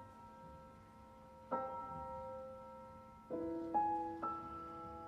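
Solo piano playing soft, sparse chords and single notes, each struck and left to ring and fade, about five strikes in the second half.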